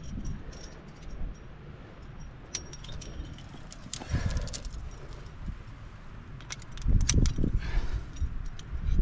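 Metal climbing gear, carabiners and quickdraws, clinking and jangling in scattered sharp clicks, with dull low knocks and handling rumbles, loudest about four seconds in and again near seven seconds.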